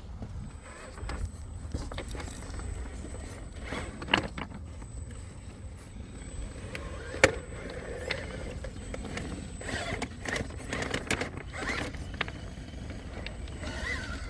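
Element RC Trailwalker rock crawler crawling over rocks: a thin, high, steady electric drivetrain whine for the first half, tyres and chassis scraping on rock, and two sharp knocks about four and seven seconds in, the second the loudest. A low rumble of wind on the microphone runs underneath.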